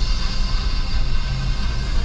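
Music playing over the steady road and engine noise of a car driving.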